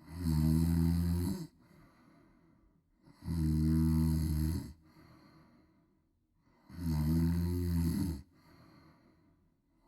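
A woman snoring loudly: three long snores about three and a half seconds apart, each lasting over a second, with quieter breathing between.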